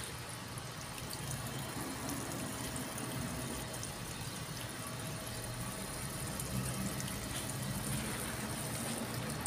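Water running steadily from a garden irrigation hose onto a planting bed.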